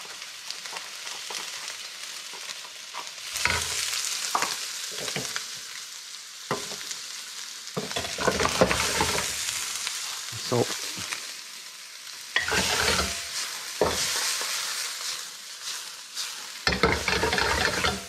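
Chopped onion, poblano pepper and diced meat sizzling in oil in a hot carbon steel wok, stirred with a wooden spatula that scrapes against the pan. The sizzle runs on steadily and swells with each stir every few seconds.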